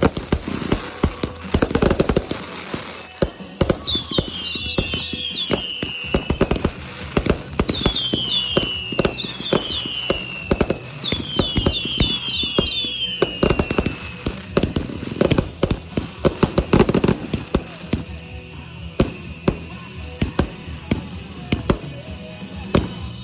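Fireworks going off in a dense barrage of bangs and crackles. Through the middle come several groups of overlapping whistles, each falling in pitch.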